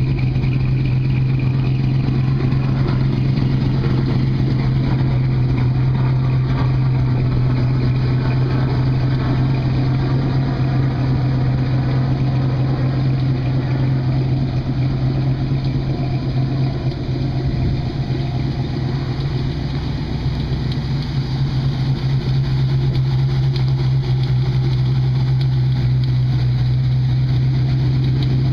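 1965 Chevrolet C10's 327 V8 with a Comp cam idling steadily through Flowmaster mufflers and 3-inch tailpipes, a little quieter for a few seconds past the middle.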